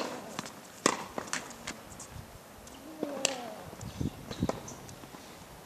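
Scattered sharp knocks of tennis balls bouncing or being struck on an outdoor court, half a dozen or so at uneven intervals. A few faint rising-and-falling calls sound between them.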